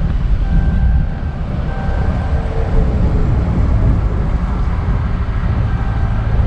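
Cabin noise of a Ram pickup with a Hemi V8 driving: a steady low engine and road rumble.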